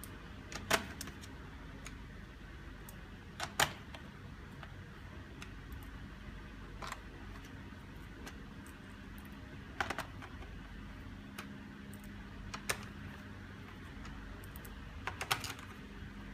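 Scattered sharp clicks and taps of small parts and tools being handled on a laptop, some in quick pairs, over a steady low hum.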